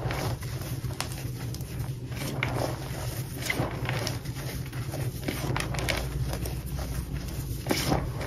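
Cornstarch and crushed gym chalk powder squeaking and crunching under fingers that press and knead it in a bowl, with short squeaks and crunches coming irregularly, a few each second.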